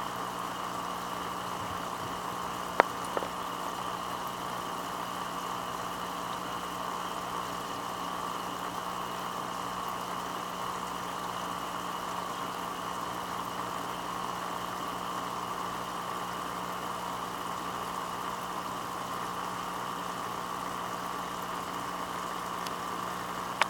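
Steady bubbling of water in a goldfish quarantine tub over a constant low hum, with a sharp click about three seconds in.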